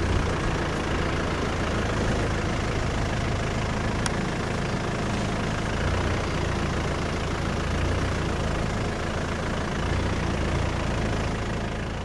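Vehicle engine running steadily with a deep low rumble as the game-drive vehicle moves off along the track.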